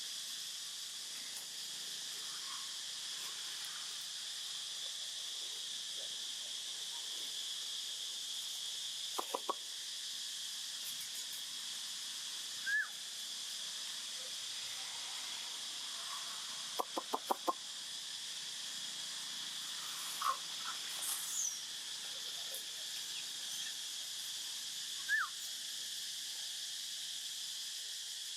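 Steady chorus of insects buzzing high and even, with a few short rising chirps about a third and two-thirds of the way in and two quick runs of clicks, three and then about five in a row.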